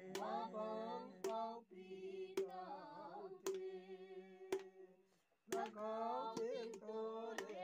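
Background song: a singing voice with bending, gliding notes over a steady drone and a light click beat about once a second, breaking off briefly about five seconds in.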